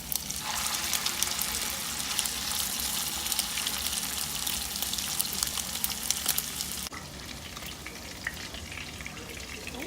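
Chicken fritters frying in hot avocado oil in a pan, a steady sizzle with dense crackling. About seven seconds in, the sizzle drops suddenly to a quieter, thinner crackle.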